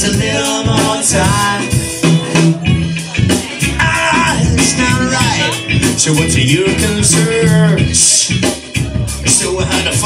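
Live band playing a song with drums, bass and guitars, and a man singing over them through the PA.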